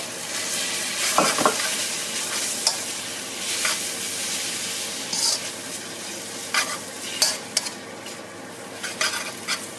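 Glass noodles and scrambled egg sizzling in oil in a hot wok while a spatula stirs and tosses them. Irregular scrapes and knocks of the spatula against the pan sound over a steady frying hiss, busiest just over a second in.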